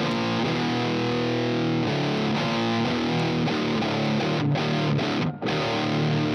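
Heavily distorted electric guitar played through a Neural Amp Modeler capture of a Peavey VTM 60 valve amp and a speaker-cabinet impulse response: one of the pack's deliberately extreme, 'bad'-sounding tones. The playing breaks off briefly twice near the end.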